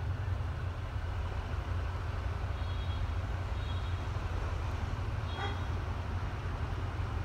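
Distant D10H (DFH21) diesel-hydraulic locomotive engine running, a steady low rumble. A few faint high squeaks come and go over it from about midway.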